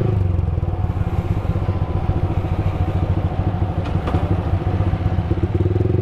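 Motorcycle engine running while riding. Just after the start the steady engine note falls to a lower, uneven pulsing, and it returns to a steady note near the end.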